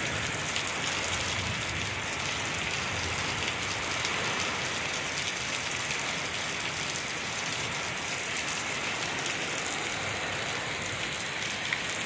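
Torrential wind-driven rain pouring down in a steady, even hiss.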